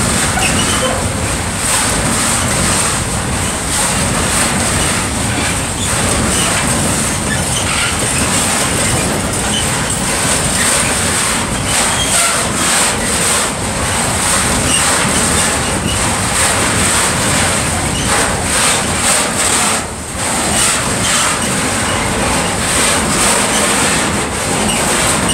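Container wagons of a freight train rolling past close by: a steady rumble of steel wheels on rail with irregular clicks over the rail joints, and a thin high-pitched ring throughout.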